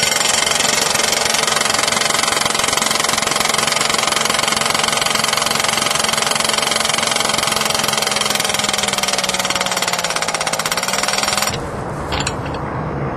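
Power demolition hammer driving an Oz Post steel ground spike into the soil, a loud, rapid, continuous hammering. Its pitch sags for a moment near the end, and it stops abruptly about eleven and a half seconds in.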